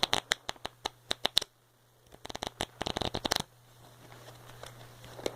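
A deck of playing cards riffled twice under the thumb, each a quick run of rapid flicking clicks lasting about a second; the second riffle starts just over two seconds in.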